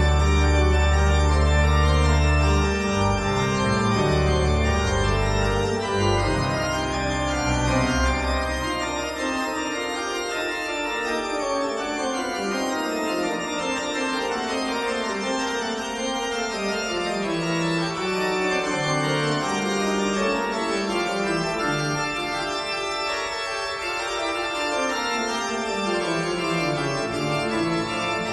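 Organ music playing sustained chords, with heavy deep bass notes that drop away after the first several seconds, leaving higher held chords and melody.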